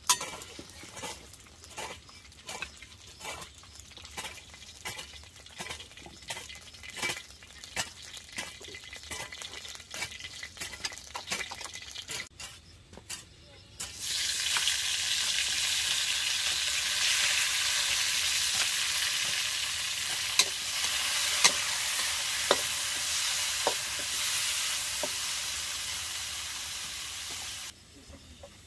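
A series of light knocks and clicks, then about halfway through a loud sizzle starts suddenly, typical of food going into hot oil in a pan, and goes on steadily with a few sharp pops before stopping abruptly near the end.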